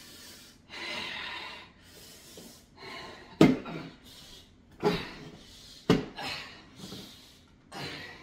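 A man's heavy, pained breathing, with three short grunts about a second apart in the middle.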